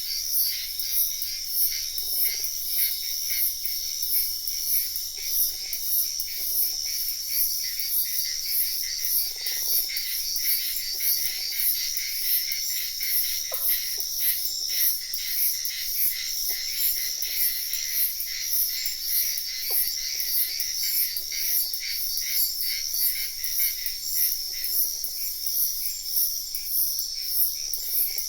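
Forest ambience of insects chirring in a steady, high-pitched pulsing chorus, with short low frog croaks every second or two.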